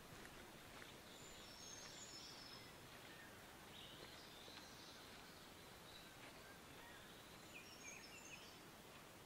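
Near silence: quiet outdoor background with a few faint, high-pitched bird chirps, in brief bunches about two seconds in, around four seconds, and again near the end.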